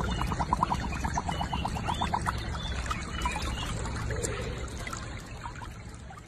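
Water sloshing and trickling as a husky lies and shifts about in a shallow muddy pool, with a quick regular patter of splashes in the first two seconds.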